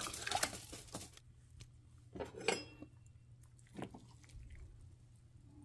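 Metal spoon clinking and scraping against a metal cooking pot while stirring soup: a run of clinks in the first second, then a few separate knocks between about two and four seconds in.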